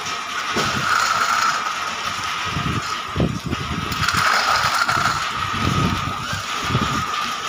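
Soya chunks making machine running: a steady high whine over a hiss.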